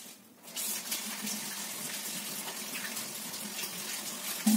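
A water tap running in a steady stream, turned on about half a second in and shut off near the end.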